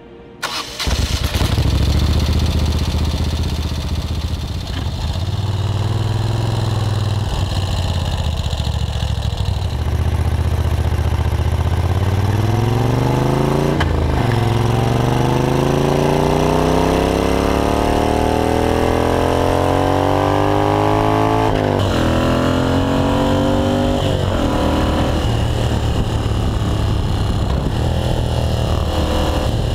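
Moto Guzzi La Macchina 850's V-twin engine fires up about a second in and runs with a deep rumble. Later the rider accelerates hard, the pitch rising through the gears with three upshifts, then settles into steady cruising.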